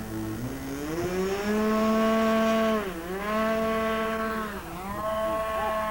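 Small two-stroke glow model-aircraft engine (an OS .28) in a lifting-body RC plane throttling up from idle for the takeoff, its buzzing pitch climbing steeply and then holding high. The pitch dips briefly twice as the model lifts off and flies low past.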